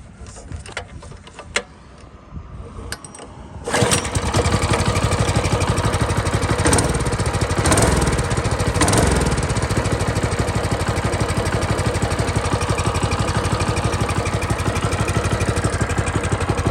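Minibike's 208 cc single-cylinder small engine running steadily, revved up briefly a few times, after a few seconds of faint clicks and handling noises.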